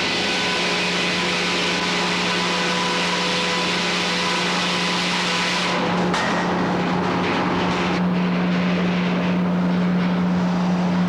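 Frick 00 sawmill running, its circular head saw cutting through a log with a loud hiss over a steady hum; about six seconds in the hiss drops away as the cut eases, then partly comes back.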